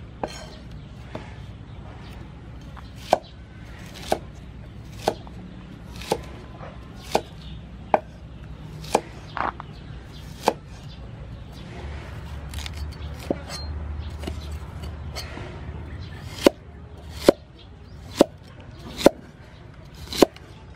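Cleaver slicing an onion on a thick wooden chopping block: sharp knocks of the blade on the wood, about one a second, pausing for a few seconds midway before resuming.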